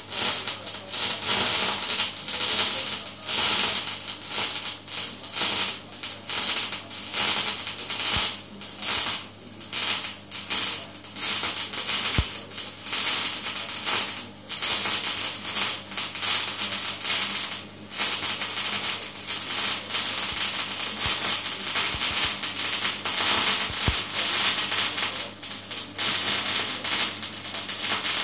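MAG welding arc in spray-transfer mode, set short, fed with 1 mm wire while laying a fillet weld in the flat position: a steady, loud crackling hiss, with a low steady hum underneath.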